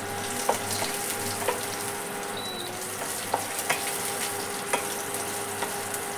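Whole spices sizzling in a little hot oil in a kadhai, stirred with a wooden spatula that ticks against the pan now and then: a tempering of cumin, fennel and kalonji being browned.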